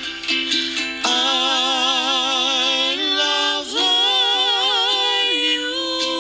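Pop song with a singing voice holding long notes with a wavering vibrato and no words, sliding up in pitch a little before four seconds in.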